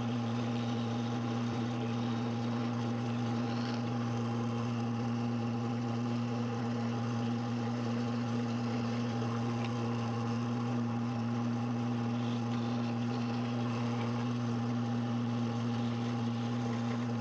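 Drill press motor running at a steady speed with an even hum, while a small bit drills pilot holes into laminated hickory for the brass screws.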